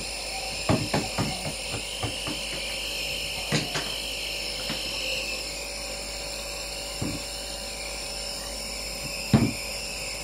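Compressor nebulizer motor running with a steady mechanical hum, driving the medicine mist through the tube to the mouthpiece. Scattered light clicks and knocks sound over it, with a louder knock about nine seconds in.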